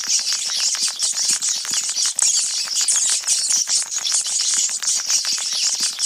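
A swarm of sewer rats: continuous high-pitched squeaking and chittering over rapid, dense skittering clicks.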